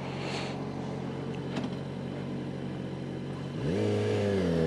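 Yamaha FZ6R's 600cc inline-four running steadily under way. About three and a half seconds in, the engine revs up sharply and gets louder as the bike accelerates.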